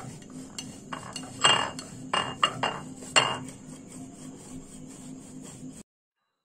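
A block of khoya kheer grated on a flat stainless-steel grater over a plate: a run of uneven scraping strokes, a few of them much louder. It cuts off suddenly near the end.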